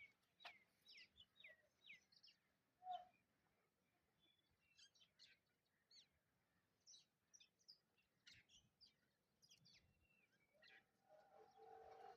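Faint bird chirps, short quick calls scattered throughout against quiet outdoor background. Near the end, a faint held sound with two steady tones begins.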